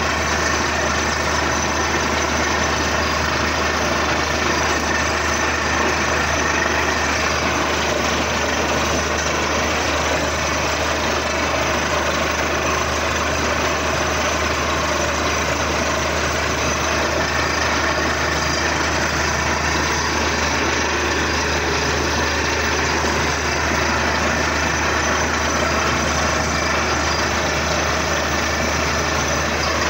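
Truck-mounted borewell drilling rig running steadily while drilling: a constant low engine drone under a dense, even mechanical noise.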